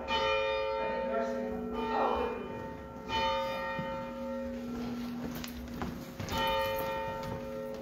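Church bell tolling slowly: three strokes about three seconds apart, each ringing on and fading before the next.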